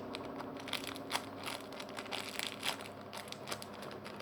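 Crinkling crackles from a homemade marshmallow squishy being squeezed and handled: a run of irregular short crackles over a faint steady hum.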